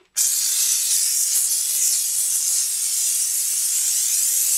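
Steam cleaner jet hissing steadily against a motorcycle's rear wheel, loosening the grime and chain lube. The hiss cuts in just after the start.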